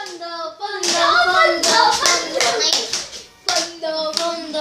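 Children clapping over and over while cheering with long drawn-out calls, with a brief lull about three seconds in.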